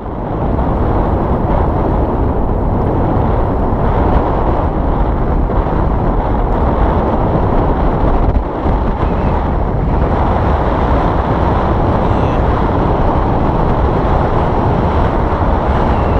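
Strong wind buffeting the camera microphone: a loud, steady rumble.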